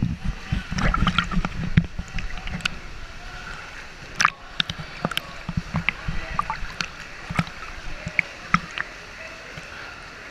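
Sea water sloshing and lapping around a camera held at the surface, with irregular splashes, sharp clicks and low knocks as small waves hit the housing.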